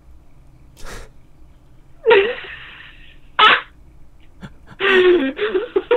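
A man's breathy vocal noises: a long loud exhale with some voice in it about two seconds in and a short sharp huff a second later, then a few mumbled words near the end.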